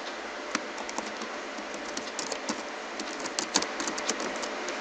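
Typing on a computer keyboard: quick, irregular key clicks starting about half a second in.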